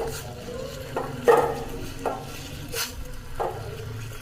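A spoon stirring and pressing tulsi leaves boiling in a little water in a small pan, knocking and scraping against the pan about six times over the simmer.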